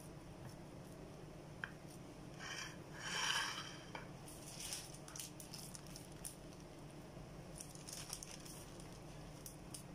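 Thin clear plastic bag crinkling in short crackles as gloved hands unfold it and smooth it flat on a granite countertop, with a louder rustle about three seconds in.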